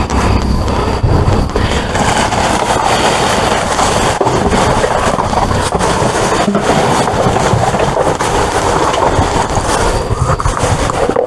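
Plastic bags and bubble wrap rustling and crinkling close up as gloved hands dig through the trash in a dumpster, a continuous crackle of many small crackles.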